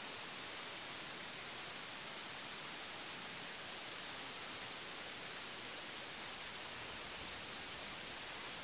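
Steady hiss of electronic static, even and unchanging, with no other sound standing out of it.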